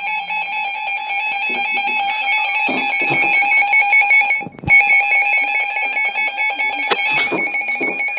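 Emergency Alert System attention signal: a loud, steady electronic alarm tone, broken by a brief dropout and a click about four and a half seconds in.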